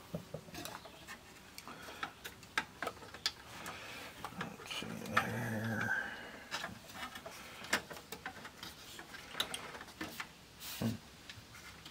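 Scattered small clicks, taps and rubs of hands and a screwdriver working the plastic disc-clamp bracket and screws of an opened Technics CD changer, with a louder scraping rub about five seconds in.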